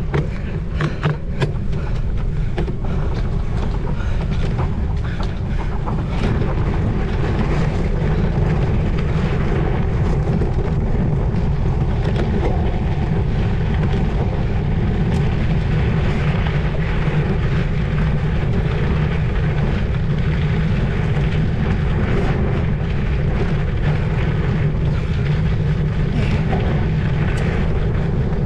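Wind rushing over the microphone of a cyclocross bike being raced, a loud, steady low rumble, with a few sharp knocks and rattles in the first second or two.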